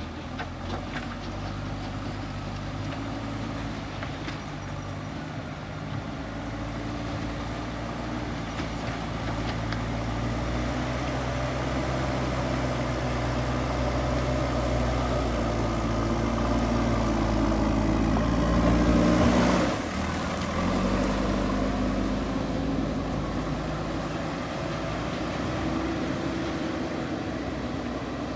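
Diesel engine of a JCB earthmoving machine working, its note shifting up and down with the load. It grows louder to a peak about two-thirds of the way through, dips sharply, then picks up again.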